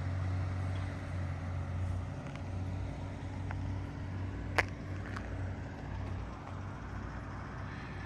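Motor vehicle engine idling with a steady low hum that does not change in pitch, and one sharp click about four and a half seconds in.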